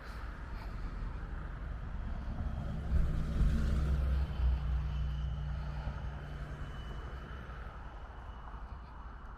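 A motor vehicle driving past on a city street: a low engine rumble and hum that swells to its loudest about three to four seconds in, then fades as it moves away.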